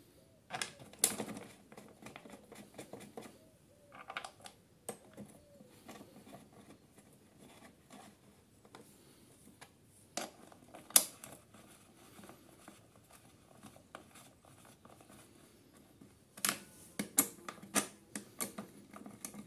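Scattered metallic clicks and scrapes of hand tools and screws as the fixing screws are refitted on a lawnmower engine's starter. There is a sharp click about a second in, the loudest about 11 seconds in, and a quick run of clicks near the end.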